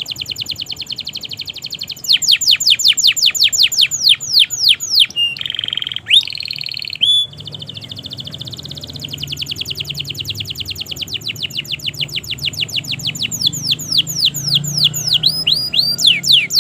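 Domestic canary singing a long continuous song of trills: rapid strings of repeated falling notes, some slower and louder, broken about five to seven seconds in by a couple of held whistled notes before the fast trilling resumes.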